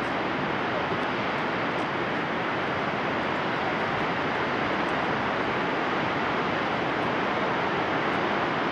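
Steady, even rush of the Yellowstone River's white water and falls in the canyon below.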